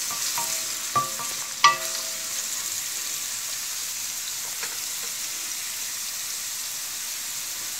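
Chopped onions and cumin seeds sizzling steadily in hot oil in a stainless steel pan. In the first two seconds a wooden spoon knocks against the pan three times, making the metal ring briefly; the last knock, just under two seconds in, is the loudest.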